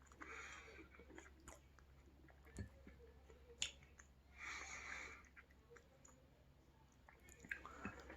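Faint, close-miked chewing and mouth sounds of someone eating sushi, with a few light clicks and two short hissy sounds, one near the start and one about halfway.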